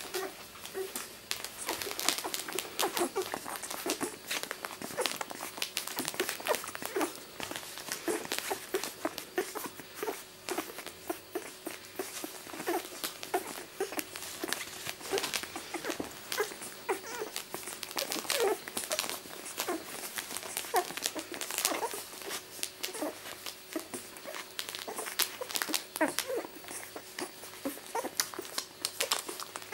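Two-week-old miniature labradoodle puppies suckling at their mother: rapid, irregular wet sucking and smacking clicks, with brief small squeaks and grunts among them.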